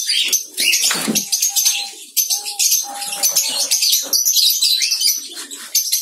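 Wire bird cage rattling and doves' wings fluttering as a hand reaches in among them, with a knock about a second in. A few short, even bird calls sound over the rattling.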